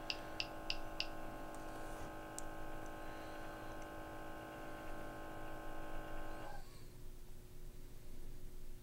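Trak-It IIIa gas detector running its auto-zero: a few quick ticks at about four a second in the first second, then the steady hum of its internal sample pump, which cuts off suddenly about six and a half seconds in as the pump stops for the pressure-sensor zero.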